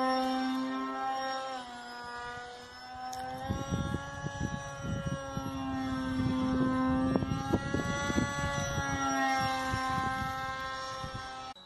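Propeller and motor of a small foam RC model plane in flight: a steady whine that rises and falls in pitch as the throttle changes. From about three and a half seconds in, wind buffets the microphone with a low rumble.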